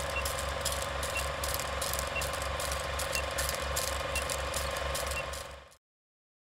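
Film projector sound effect: a steady mechanical clatter with a short high beep once a second, counting down the seconds of a film-leader countdown. It cuts off suddenly about five and a half seconds in.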